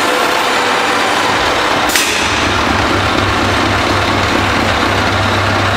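Scania R560's V8 diesel engine idling through its straight side exhaust pipe: a low, even rumble that comes in about a second and a half in, with a sharp click just after.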